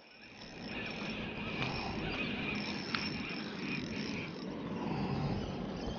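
Spinning reel whirring with a steady high, insect-like chirr while a hooked bream is played on light tackle, with a couple of faint ticks.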